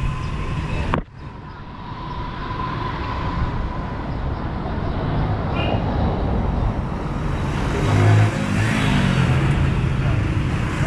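Street traffic of small motorcycle and tricycle engines running close by. The sound drops away suddenly about a second in and builds back up, and about eight seconds in one engine passes loudly, its pitch falling.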